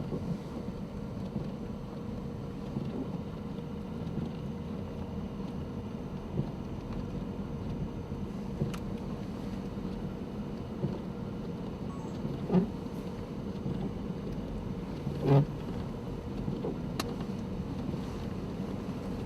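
Steady engine and road drone inside a moving vehicle's cabin, with a low hum. A few short knocks and clicks break in, the loudest about three quarters of the way through.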